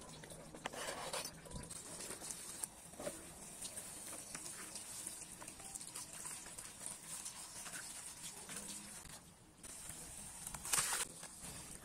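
Tap water running into a plastic colander of chopped greens and splashing as hands rinse and stir the herbs, with scattered small clicks of handling; briefly louder near the end.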